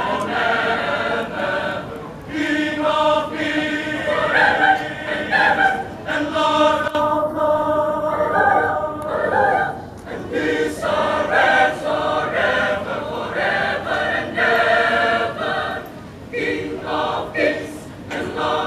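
A choir singing together in several voice parts, held chords moving from phrase to phrase with short dips between phrases.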